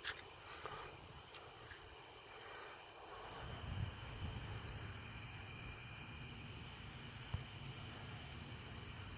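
A steady chorus of night insects, with a low rumble of wind on the microphone swelling from about three seconds in.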